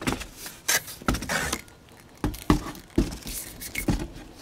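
Glass wine bottles knocking and scraping against the cardboard dividers of a wine case as one is pulled out: a run of short knocks and scrapes.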